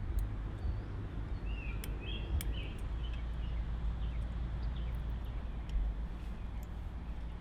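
Outdoor ambience: a steady low rumble with a few short bird chirps in the first few seconds and scattered faint clicks.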